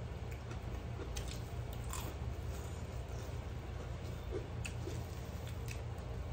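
Eating by hand: scattered soft clicks of fingers and food against a ceramic plate, with chewing, over a steady low hum.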